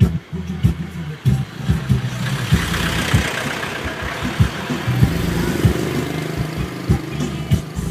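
Bass-heavy music with a fast kick-drum beat played loud through a newly installed Kenwood car sound system. A rushing noise swells and fades over the middle few seconds.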